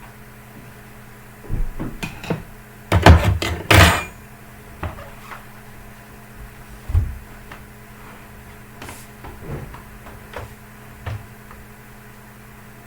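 Knocks and clatter of a laptop and its parts being handled, loudest in a cluster about three to four seconds in, then scattered light taps and clicks, over a steady low hum.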